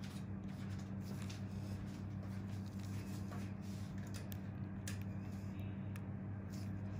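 Steady low electrical hum with faint scattered clicks.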